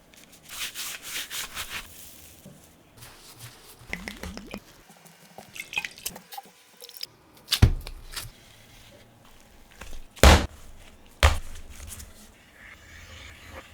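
Kitchen food-preparation handling sounds: a run of rustling or mixing strokes near the start, scattered wet, squishy clicks, and three sharp knocks on a work surface about eight, ten and eleven seconds in.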